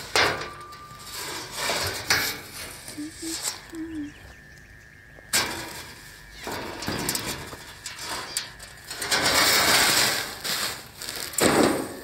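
An aluminium checker-plate sheet being handled and set down on plastic weed mat: several metallic knocks and rattles, a longer rustling stretch late on, and a heavy thump just before the end.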